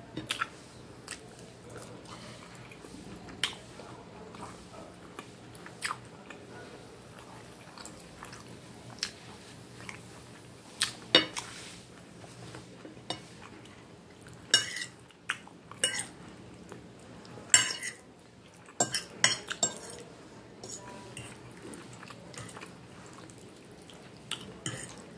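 Metal knife and fork clinking and scraping against a dinner plate in scattered sharp clinks, with chewing in between.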